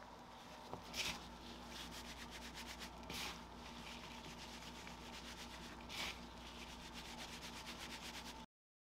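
Gloved hands rubbing butter into flour in a wooden bowl, the rubbing-in stage of scone dough: a steady soft rubbing and rustling of the crumbly mixture, with louder swishes about a second in, after three seconds and after six seconds. It cuts off suddenly near the end.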